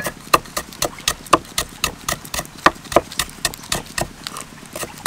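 Crisp kaffir lime leaves being torn from their stems by hand: a quick run of small sharp snapping clicks, about four or five a second.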